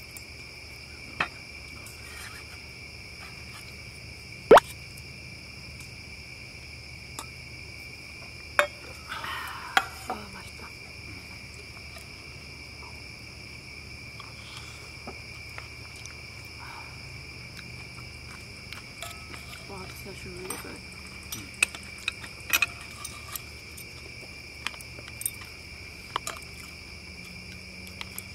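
A steady, high chorus of night insects, with scattered sharp clinks and taps of chopsticks, spoons and metal cups on bowls and dishes during a meal. The loudest clink comes about four and a half seconds in, and a run of them comes near the end.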